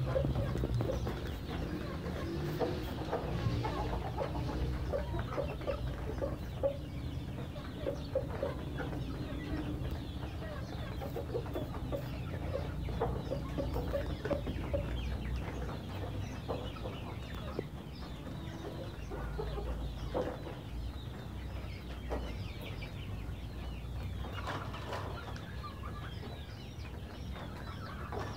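Rhode Island Red chickens clucking in short, scattered calls over a low, steady rumble.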